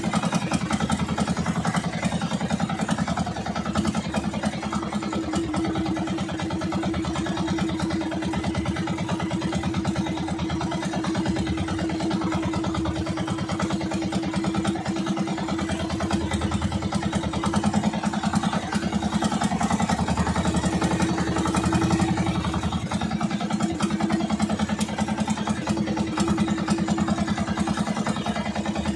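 Motorized outrigger boat's engine running steadily at a constant speed while under way.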